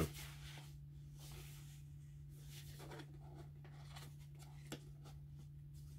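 Faint scraping and rustling of cardboard box-set packaging being handled and pried at, with a sharp click at the very start and a small click about three-quarters of the way through, over a steady low hum.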